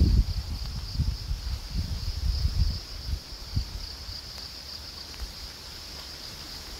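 Steady high-pitched chorus of insects. Low rumbling wind buffets the microphone in the first few seconds, then eases.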